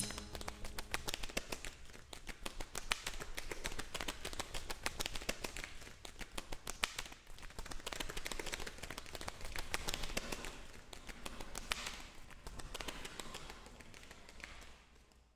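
A rapid, irregular patter of light taps and clicks that swells and eases several times, then fades out near the end.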